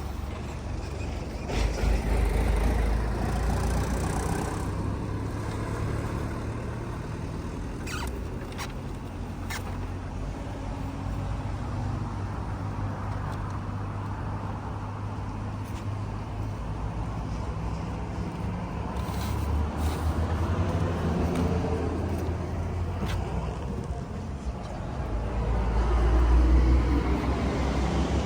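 A car running on the road, heard from inside the cabin as a steady low engine and road hum that swells near the end.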